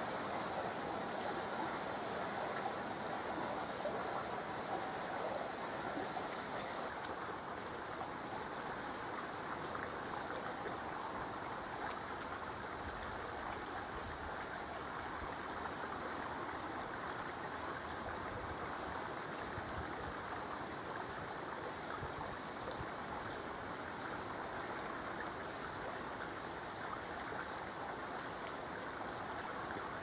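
Small woodland brook flowing steadily, a constant rush of running water, with a few faint high bird chirps now and then.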